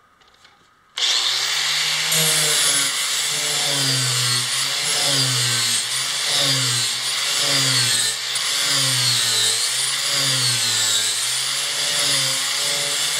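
Angle grinder fitted with a sanding disc, switched on about a second in and run against the wooden edge of a kayak top, sanding it down. The motor's pitch wavers up and down over and over as the load on the disc changes.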